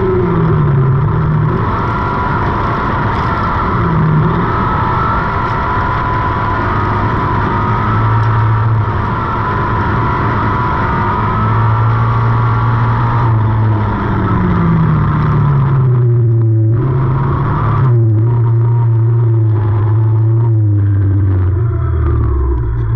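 Dirt-track race car's engine running hard, over a steady rush of tyre and gravel noise. About two-thirds of the way in, the engine note falls as the car slows, then settles into a lower steady drone.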